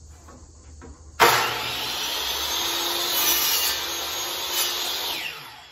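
DeWalt miter saw starting suddenly about a second in, running as it cuts the end off a 1x2 furring strip, then winding down with a falling pitch near the end.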